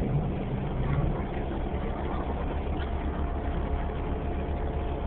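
New Flyer Xcelsior XDE40 diesel-electric hybrid bus heard from inside the passenger cabin, its drivetrain running with a steady low drone.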